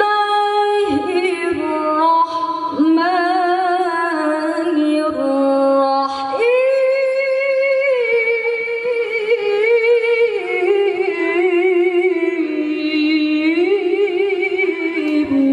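A woman reciting the Qur'an in melodic tilawah style into a microphone: long held notes decorated with quick wavering turns, broken by a few short pauses for breath.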